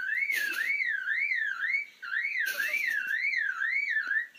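Superb lyrebird mimicking a car alarm: a siren-like warble that rises and falls several times a second, in two phrases with a short break about two seconds in. Two brief rushes of hiss come through it.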